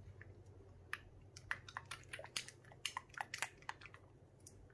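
Silicone spatula stirring gooey slime base in a glass bowl, a run of faint, irregular clicks, as the first spoonful of activator is mixed into the glue.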